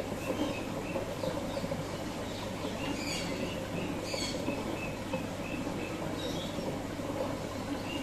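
Aquarium water running with a steady pump hum, and small birds chirping in short, repeated high notes over it.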